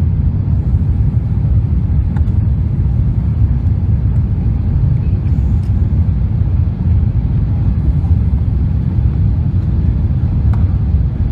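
Steady low rumble of an Airbus A380 rolling along the runway after landing, heard inside the cabin.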